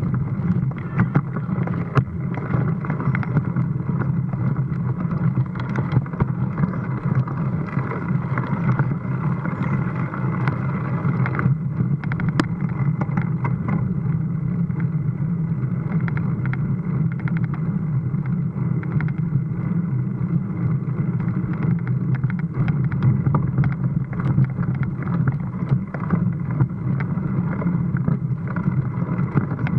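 Mountain bike climbing over paved and stone street surfaces, heard through an action camera: a steady muffled rumble of wind and tyre noise with frequent small rattles and knocks.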